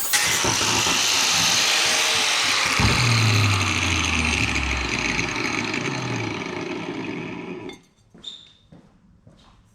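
Power tool running loud and rough while working on stainless exhaust parts, stopping abruptly about eight seconds in, followed by a few light handling knocks.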